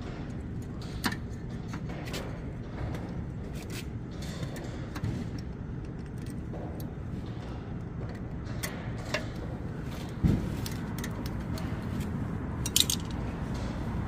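Scattered light metallic clicks and clinks over a steady low rumble, with a heavier thump about ten seconds in and a brief bright clatter near the end.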